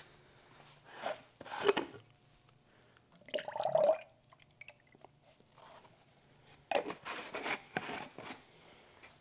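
Clothing and nitrile gloves rustling and rubbing as a jacket and gloves are pulled on, in several short bursts over a faint steady low hum.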